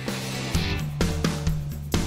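Background music: guitar over held low notes, with several sharp drum hits.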